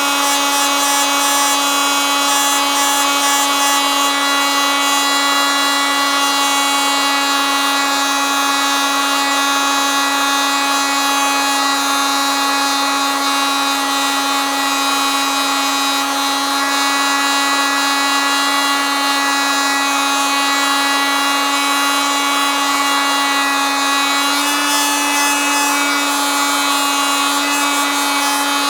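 Oscillating multitool running steadily, giving a constant high-pitched buzz. Its pitch steps up slightly near the end.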